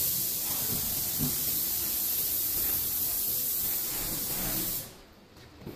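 Compressed air hissing steadily, then cutting off abruptly near the end.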